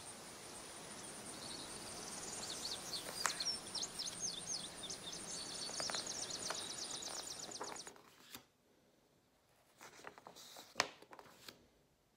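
Faint bird chirping, a run of quick high chirps over a steady background hiss, which stops about eight seconds in. A few soft clicks follow near the end.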